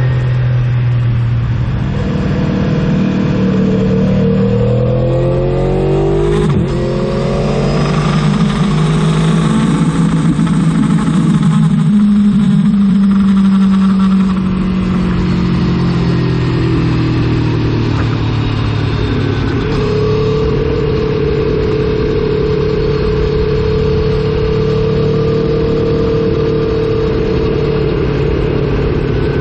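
Aprilia Tuono motorcycle engine and exhaust under way, its pitch rising and falling as it revs, with a sharp click about six and a half seconds in. From about two-thirds of the way through it holds a steady note.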